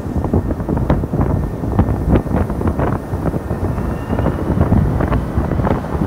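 Strong wind buffeting the microphone: a loud, uneven low rumble with irregular gusts. A faint thin whine from the approaching airliner's jet engines comes in about four seconds in, rising slightly.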